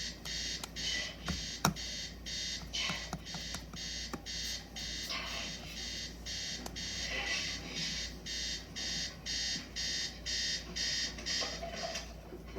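Electronic alarm beeping in a fast, even pattern of high-pitched beeps, about two to three a second, stopping near the end. A single sharp click about a second and a half in.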